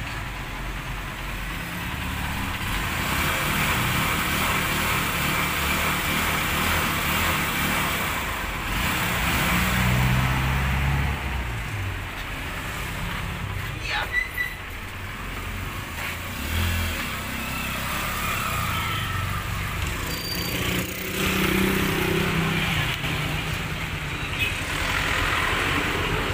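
Honda TMX motorcycle's single-cylinder four-stroke engine running at low speed as the bike pulls out, its note shifting up and down with the throttle, over street traffic noise.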